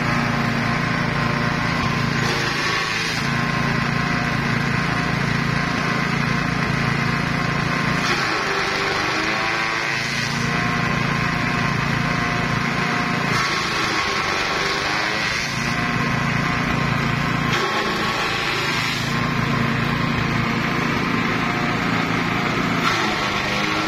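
A small petrol engine drives a grass chopper through a belt, running steadily as long grass is fed in and chopped. Its note changes every two to three seconds.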